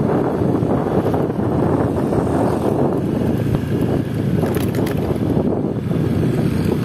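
Wind buffeting a phone's microphone while travelling along a road at speed, with vehicle road and engine noise beneath it.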